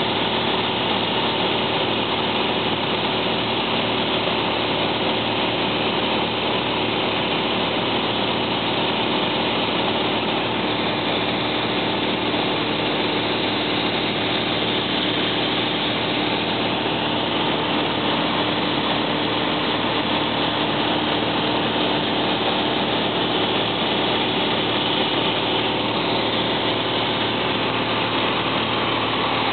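A single-engine light aircraft's engine and propeller drone steadily in flight, heard inside the cabin.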